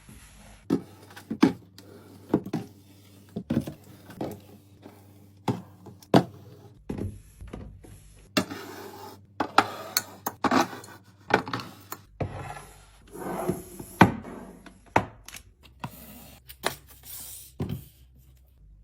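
Groceries and storage containers being set down and slid into place on fridge shelves: an irregular string of knocks and clinks with rubbing and scraping between them.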